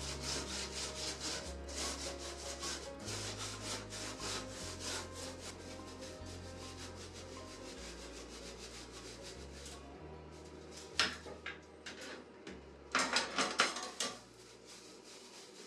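Scrubbing strokes on the stainless-steel Belmont TOKOBI fire pit, rapid and even at about four strokes a second, easing off after about nine seconds, then a brief louder flurry of strokes near the end. Soft background music underneath.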